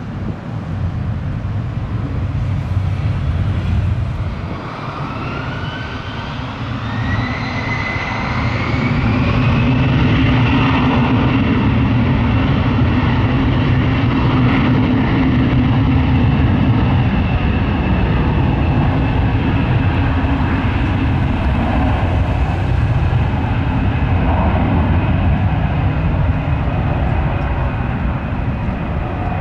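Airbus A320 jet engines spooling up for takeoff on a wet runway. After a few seconds of low rumble, a whine rises in pitch for several seconds and then holds as a steady high whine over a loud, heavy rumble at takeoff thrust.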